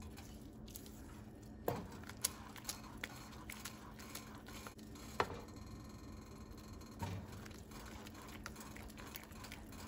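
Silicone spatula stirring still-runny vermicelli in milk in a granite-coated pan: soft squishing with scattered light knocks and scrapes of the spatula against the pan, the sharpest about five seconds in.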